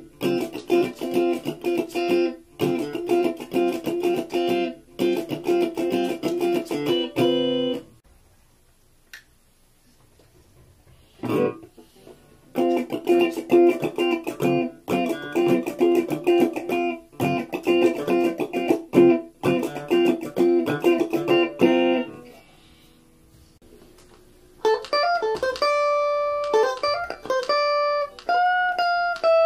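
Stratocaster-style electric guitar played unaccompanied: a fast, rhythmic chord riff repeated in two passages, each broken off by a short pause with one lone chord in the first. Near the end it changes to a line of single picked notes.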